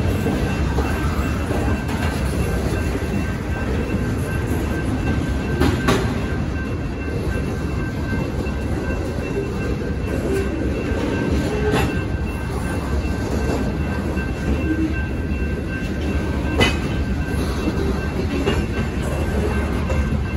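Freight train cars rolling past at a grade crossing: a steady rumble of steel wheels on rail, with sharp knocks about 6, 12 and 17 seconds in.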